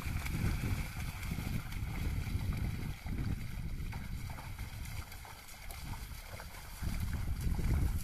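Muddy water splashing and sloshing as a pair of bullocks and a wooden plough wade through a flooded paddy field. It is quieter in the middle and louder again near the end.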